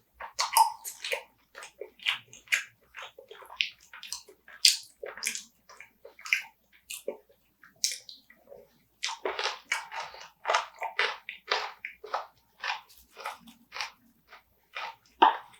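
Close-miked wet chewing and lip smacking of a mouthful of rice and seaweed with spicy marinated crab, irregular short smacks about two to three a second.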